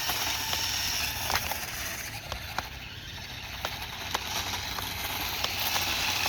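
A small battery-powered RC toy car driving away, a steady hiss of motor and tyres with scattered small clicks and ticks. It fades a little over the first couple of seconds, then holds steady.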